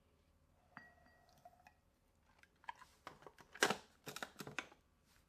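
Faint kitchen handling sounds as sugar is measured and added to the gelatin mix: a brief faint squeak about a second in, then a scatter of light clicks and taps, the sharpest about halfway through.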